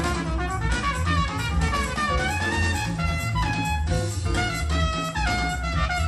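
Jazz played back through a pair of Monitor Audio Silver 100 6G bookshelf speakers: a horn carries the melody over bass and drum kit.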